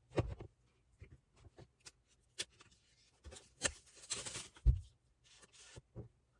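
Handling sounds of unboxing a tablet and its packaging: scattered light taps and clicks, a stretch of rustling or peeling of wrapping about three to four and a half seconds in, and a soft knock shortly after.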